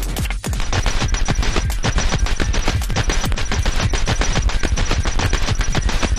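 Fast early-90s techno: a rapid, even rattle of sharp hits like machine-gun fire over a steady deep bass, with a thin high tone running through it.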